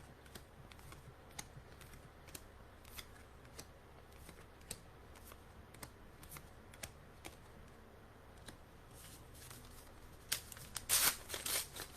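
Trading cards from a booster pack being handled and flipped through: scattered soft clicks of card against card, then louder rustling from about ten seconds in.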